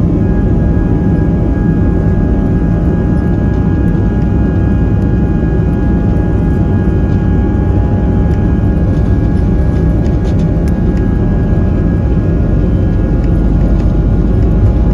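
Airbus A320 jet engines at takeoff power, heard inside the cabin over the wing during the takeoff roll: a loud, steady roar with a steady high whine from the engine fan.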